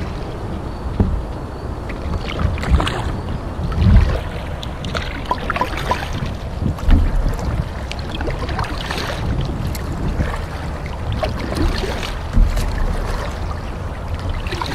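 A canoe paddle dipping and pulling through the water, with splashes and drips running off the blade, and a few heavier strokes every few seconds. Wind rumbles on the microphone underneath.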